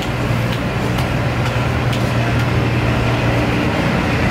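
Steady low motor hum with a few light clicks in the first half.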